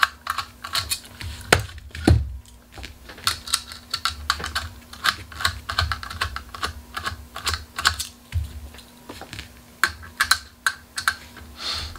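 Small precision screwdriver turning hex screws out of a graphics card's metal bracket: a busy, irregular run of small clicks and ticks, with a heavier knock about two seconds in. A faint steady hum sits underneath.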